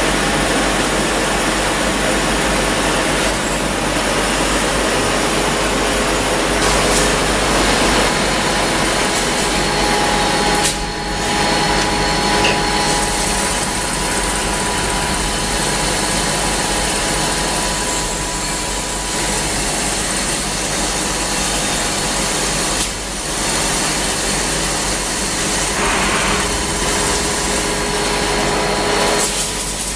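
Tschudin HTG 22 CNC cylindrical grinding machine running: a loud, steady whirring hiss with faint steady tones through it, dipping briefly twice.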